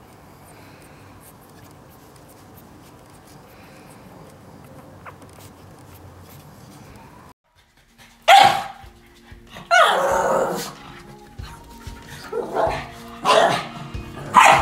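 A pug barking in a series of loud barks, about five of them, the second one longer than the rest. They start about eight seconds in, after a stretch of faint background noise.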